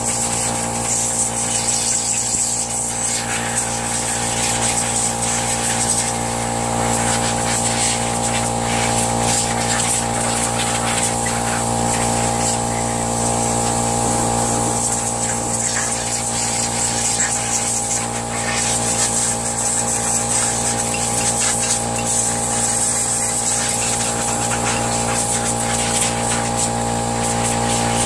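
Air compressor running steadily while compressed air hisses from a blow gun, blowing debris out of a small engine's cooling fins so the engine won't overheat.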